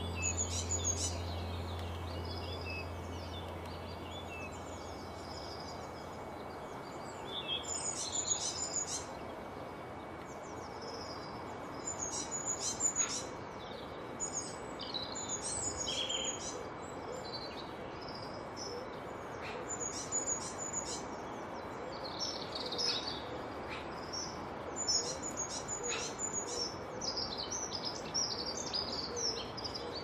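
Small songbirds chirping and twittering in short, high-pitched phrases that come in clusters every second or two over a steady outdoor hiss.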